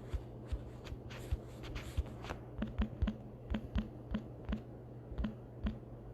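A string of short knocks and clicks, irregular at about two a second and busier after the first couple of seconds, like things being handled and set down on a table, over a steady low electrical hum.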